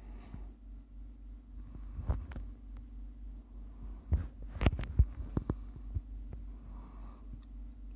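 Camera handling noise: a few low thumps and sharp knocks on the microphone, bunched about two and four to five seconds in, over a steady low hum.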